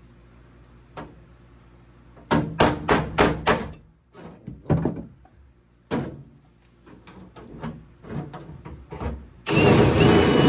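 Sharp metallic clicks and clacks from working a rivet and the rivet gun in an aluminium boat panel. About a second before the end, a drill starts and runs steadily with a high whine, opening up a rivet hole that was too tight.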